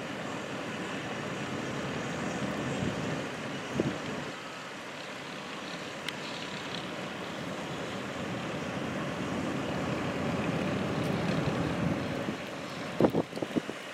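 Komatsu wheel loader's diesel engine running steadily as the machine pushes snow with a pusher box, with a thud about four seconds in and a few short knocks near the end.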